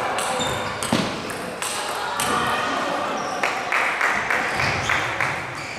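Table tennis balls clicking off bats and tables at irregular intervals, from several tables in play at once.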